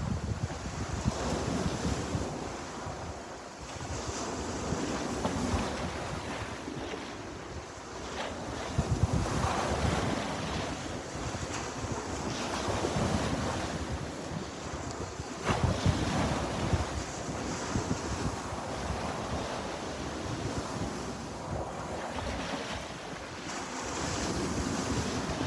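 Sea waves breaking and washing on the shore, the surf swelling and ebbing every few seconds, with wind buffeting the microphone.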